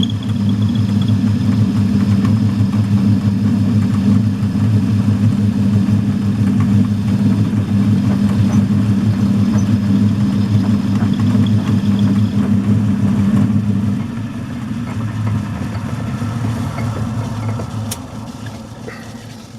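Old metalworking lathe running with a steady motor hum while turning a drawbar blank down, then switched off about two-thirds of the way through and winding down, with a click near the end.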